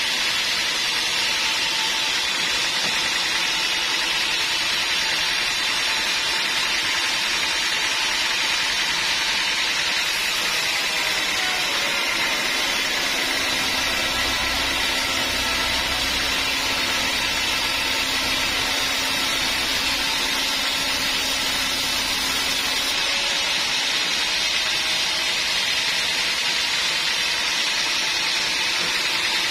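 Sawmill saw and machinery running steadily with a loud hiss. From about halfway in, a deeper hum joins for some ten seconds and then fades out.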